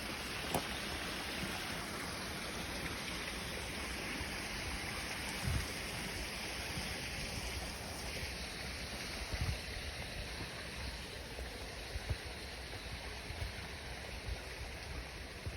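Steady rushing of running water, like a stream or a small outflow, with a few soft low knocks scattered through it.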